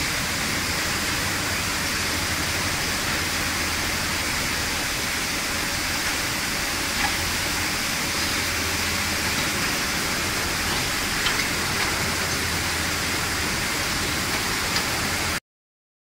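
Power cable extrusion line running: a steady, even hiss-like machine noise with a low hum and a few faint clicks. It cuts off suddenly near the end.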